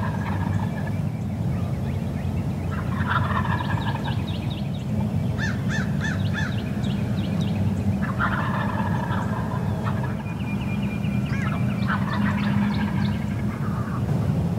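Wild turkey gobbler gobbling from its roost tree: a gobble trailing off at the start, then three more at intervals of about four to five seconds. Other small birds call between the gobbles.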